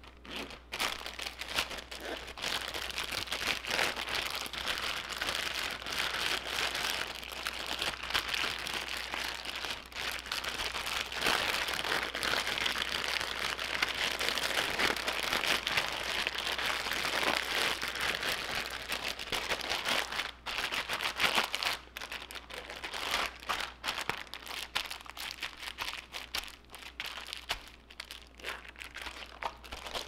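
Plastic zip-top bag crinkling and rustling as raw chicken in a soy sauce marinade is kneaded through it by hand, busy and continuous at first, then thinning to sporadic rustles in the last third.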